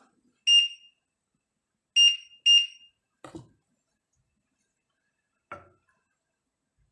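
Three short, high electronic beeps: one, then a quick pair about a second and a half later. Two soft knocks follow in the second half.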